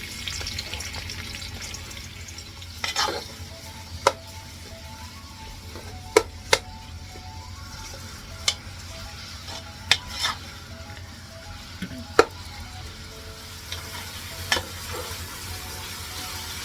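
Chopped onions frying in hot oil, sizzling steadily as they are stirred, with a spoon knocking against the pan now and then, about eight sharp knocks.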